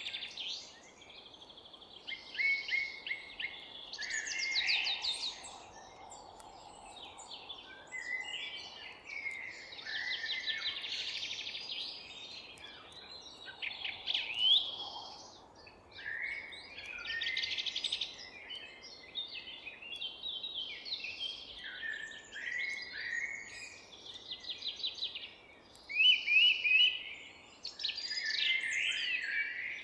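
Several songbirds singing and chirping at once in a forest, overlapping trills, twittering and short rising whistles with barely a break, the loudest bursts near the end, over a faint steady background hiss.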